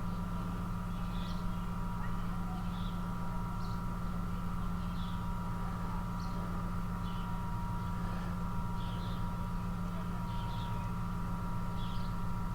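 A steady background hum, with short, high bird chirps about once a second over it.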